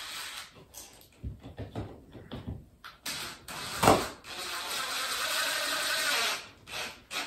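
Cordless drill driving a screw: a few short clicks and bursts, a sharp knock about four seconds in, then a steady run of about two seconds.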